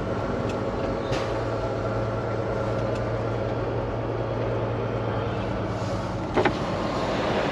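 Semi truck's diesel engine running steadily at low revs, heard from inside the cab, with a few faint clicks.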